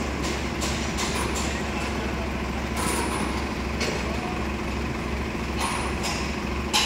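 Heavy diesel engine running at a steady speed, with several short sharp clanks and knocks over it, the loudest near the end.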